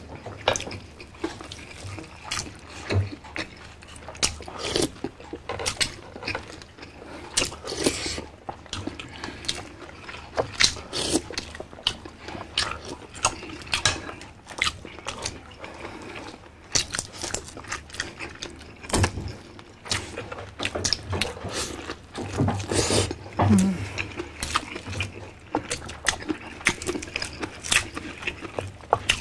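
Close-miked eating: wet chewing, lip smacks and slurps of boiled beef shank and tendon, with fingers pulling meat off the bones, in many short, irregular clicks.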